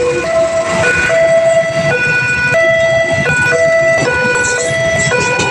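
Railway level-crossing warning alarm sounding: an electronic siren stepping back and forth between a lower and a higher tone, each held for about half a second to a second, over a low rumble. It signals that a train is approaching the crossing.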